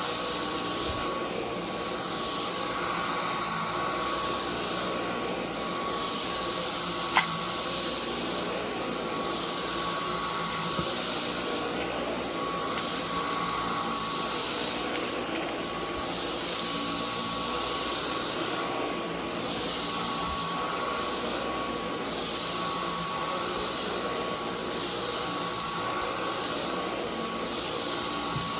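Dyson V10 Animal cordless stick vacuum running, a steady rush of air with a high whine, swelling and fading every two to three seconds as it is pushed back and forth. One sharp click about seven seconds in.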